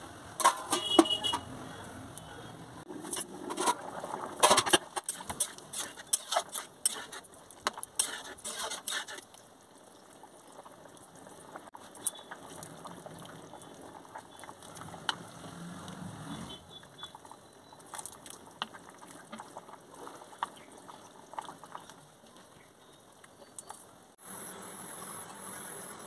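Kitchen utensil sounds at a large aluminium pan of chicken stew: sharp knocks and clatter in the first several seconds, then quieter scattered clicks as a wooden spoon stirs the stew.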